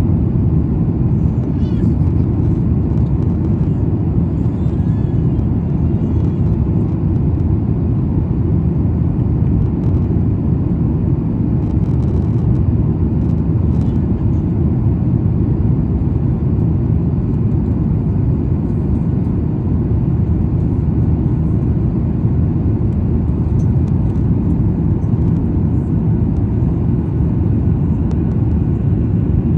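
Steady low roar of cabin noise inside a Boeing 737 MAX 9 airliner on approach: its CFM LEAP-1B engines and airflow over the fuselage, heard from a passenger seat.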